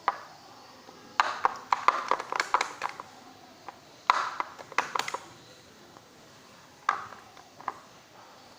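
Clear slime being squeezed and worked by hand, giving runs of sharp clicks and pops, then a couple of single pops near the end.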